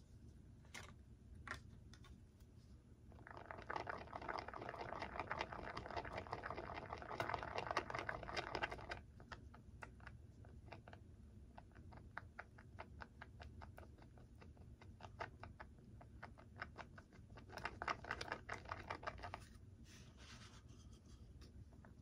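A small stick stirring and scraping glue on a piece of cardboard: rapid scratchy strokes in two spells, a long one a few seconds in and a shorter one near the end, with lighter ticks between.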